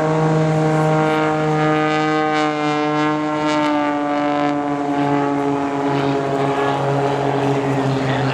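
Aerobatic propeller plane's piston engine and propeller droning steadily overhead, the pitch sliding slowly down as it dives.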